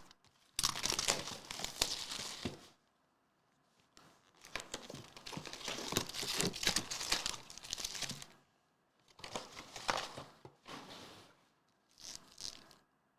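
Plastic trading-card packaging being torn open and crumpled, in four bursts of crinkling with short pauses between them.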